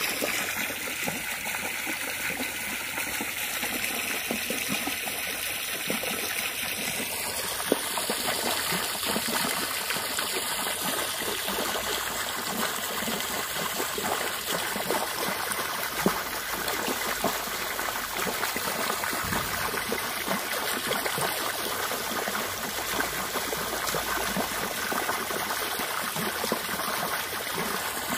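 Water from a garden hose pouring steadily into a swimming pool, splashing and bubbling where the stream hits the surface.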